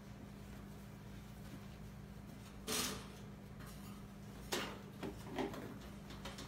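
Young raccoons scuffling in a wire cage: a few short scraping, rattling noises, one a bit under three seconds in and three more close together near the end, over a steady low hum.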